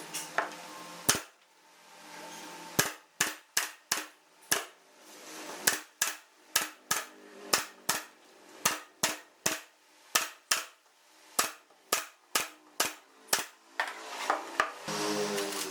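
Hand tool striking wood: a long run of sharp, irregular knocks, about two or three a second, after a single knock about a second in.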